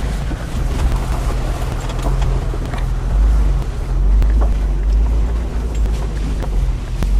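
4WD Jeep driving slowly over a rough dirt track: a steady low engine hum, with scattered knocks and rattles from the bumps.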